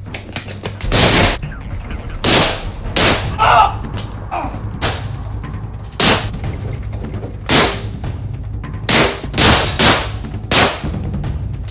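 Handgun shots: about ten single bangs fired at irregular intervals, some in quick succession near the end, over a low steady hum.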